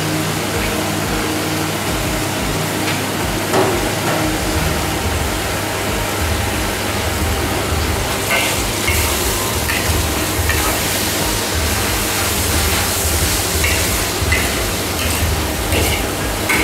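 Long beans and pumpkin sizzling in a steel wok over a gas flame while a long metal spatula scrapes and taps against the wok as they are stirred. The scrapes come more often in the second half, over a steady low hum.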